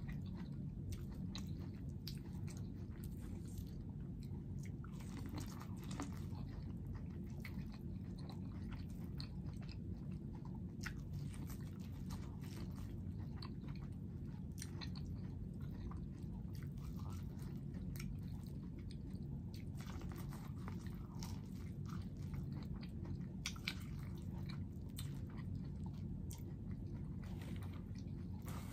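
Close-up mouth sounds of eating corn on the cob: kernels bitten off the cob and chewed, with many small wet clicks and crunches, over a steady low hum.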